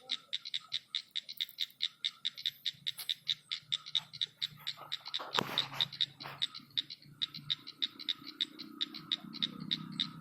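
A small animal calling at night, a steady run of short high pulses about five or six a second. There is a sharp knock about halfway through and a low hum that builds near the end.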